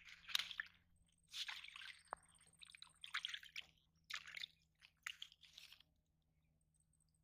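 Wet cloth bag being handled in shallow pond water: a series of short splashes and squelches, stopping about six seconds in.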